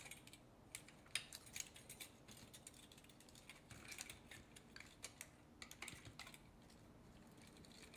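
Faint, irregular clicks and light metallic ticks of small hard-drive parts being handled, as the head actuator arm is worked loose from between the platters.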